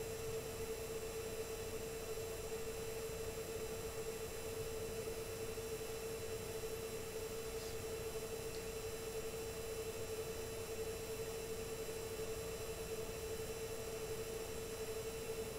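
Dell PowerEdge R210 II 1U rack server running while it boots its operating system, its cooling fans settled to about their quietest. The fans give a steady hum with one clear mid-pitched whine over a faint hiss.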